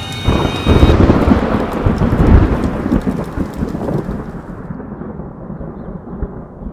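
A loud thunderclap and rolling rumble. It breaks in just after the start, is loudest in the first two or three seconds, and rumbles away over the rest.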